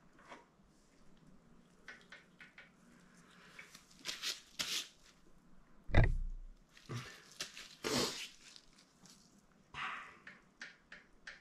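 Small metal clicks and knocks as the brake pedal and its spring are worked onto the moped frame, with rustling of gloved hands, and one loud, deep thump about six seconds in.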